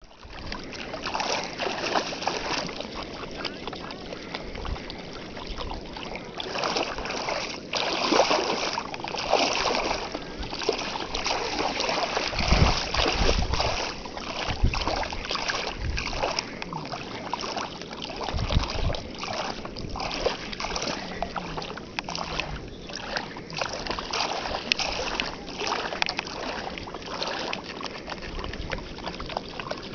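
Small dog wading and trotting through shallow water, its paws splashing in an irregular patter, with a few low rumbles near the middle.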